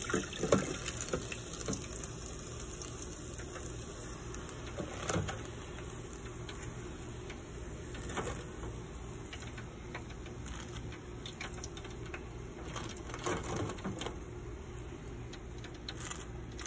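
Hot oil in an electric deep fryer crackling steadily as the lifted basket of fried fish drains above it, with a few light clicks and knocks of plastic tongs against the wire basket.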